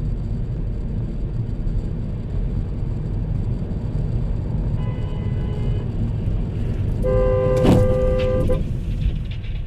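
Steady road and engine noise as heard from a dashcam in a moving car, with a car horn sounding briefly about five seconds in and again, louder, for about a second and a half near the end. A sharp knock cuts through the second honk.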